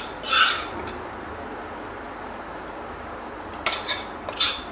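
A spatula scraping against a non-stick pan as cooked instant noodles are scooped out onto a plate: a short scrape just after the start, then two more near the end.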